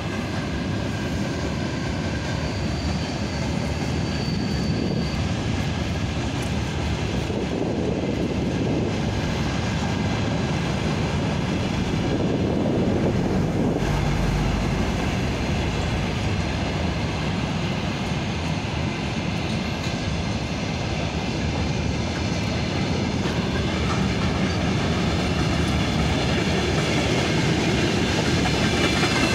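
Freight train wagons running past steadily on the rails, getting a little louder near the end.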